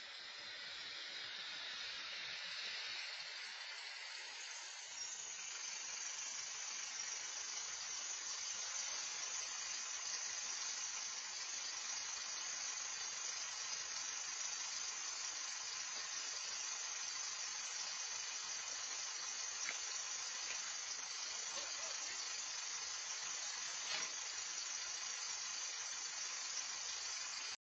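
Steady hiss, strongest in the high range, building over the first few seconds and then holding even, with a faint click about 24 seconds in; it cuts off suddenly at the end.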